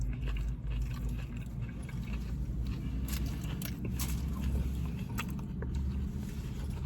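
Close-up chewing and biting of fast food, with scattered small crunches and mouth clicks over a steady low hum.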